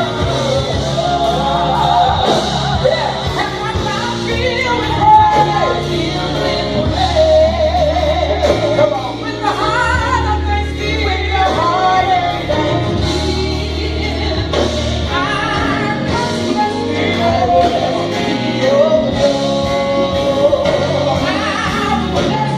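Live gospel worship music: voices singing a melody over a band, with sustained bass notes underneath.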